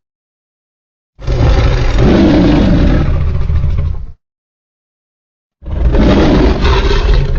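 Two deep monster roar sound effects for a fictional dinosaur-like creature, each about three seconds long and starting and stopping abruptly, with silence before and between them.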